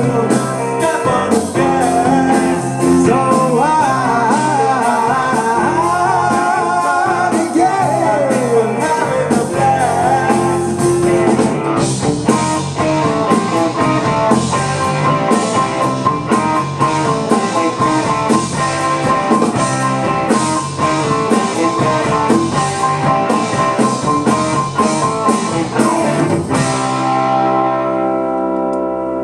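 Live blues-rock band of electric guitar, electric bass, drums and a Roland VR-09 keyboard playing the closing section of a song, with bending lead lines over the band in the first third. About 26 seconds in the drums stop and a final chord is held, ringing out.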